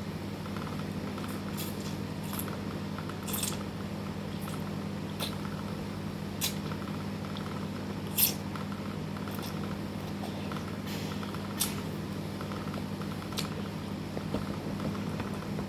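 Eating noodles: a scattering of short clicks and mouth smacks, the sharpest about eight seconds in, over a steady low hum.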